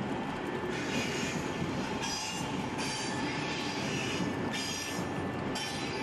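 HO scale model train of flatcars loaded with trailers rolling along the track: a steady rumble of small wheels on rail, with a brighter hiss or squeal that comes and goes about once a second.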